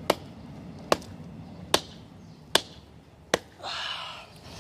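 Hatchet chopping into a very hard log: five sharp, evenly paced strikes, then a brief breathy noise near the end.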